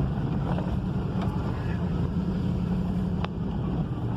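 Steady low rumble of a running vehicle engine with wind noise on the microphone, and a single sharp click a little after three seconds in.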